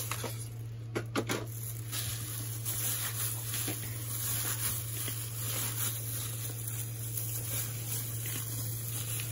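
A disposable plastic glove rustling and raw minced beef squishing as a hand kneads hamburger steak mixture in a plastic bowl, with a few sharp knocks about a second in. A steady low hum runs underneath.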